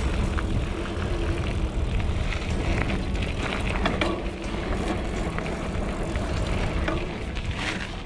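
Trek Roscoe 6 mountain bike rolling along a dirt singletrack: steady wind buffeting on the camera's microphone over tyre rumble, with scattered clicks and rattles from the bike.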